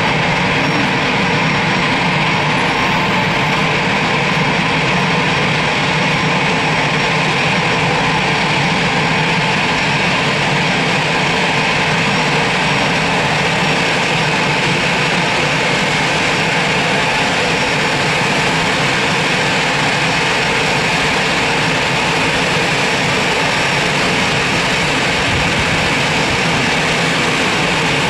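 Jet aircraft engine noise at a steady level, with no rise or fall, and a faint steady whine within it.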